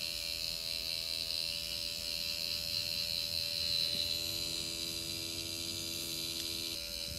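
Tattoo machine running with a steady buzzing hum as its needle works ink into skin; its tone shifts slightly near the end.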